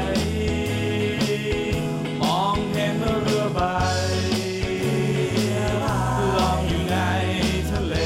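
A Thai pop song playing: a pulsing bass line and regular drum beat under a sung melody with gliding notes.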